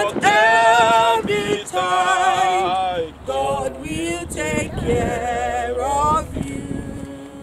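A small group of mourners singing a hymn without accompaniment, men's and women's voices together. The singing drops away about six seconds in, leaving one lower held note.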